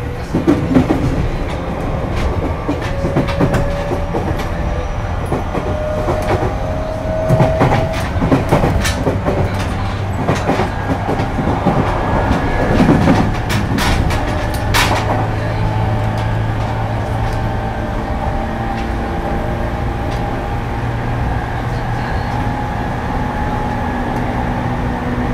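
JR East 205 series 5000 subseries motor car with a Toyo IGBT-VVVF inverter running on the line: a steady rumble with wheels clicking over rail joints. A thin inverter-motor whine rises in pitch a few seconds in, then holds almost steady.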